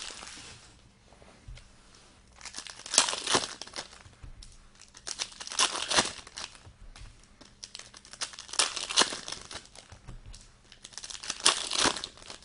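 Trading-card pack wrappers crinkling and tearing as packs are opened and handled, in bursts every two to three seconds.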